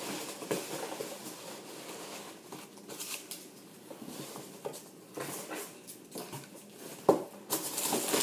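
Hands rummaging through packing peanuts in a cardboard box: irregular rustling and crackling, with a sharp knock about seven seconds in and louder rustling near the end.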